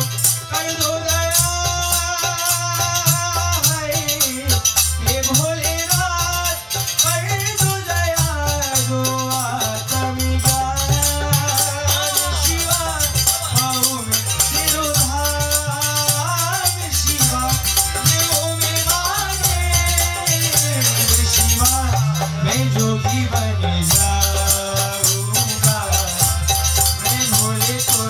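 Live Fiji kirtan: dholak drumming with harmonium and bass guitar, a steady jingling of tambourine and jhanj cymbals, and a sung melody gliding over it.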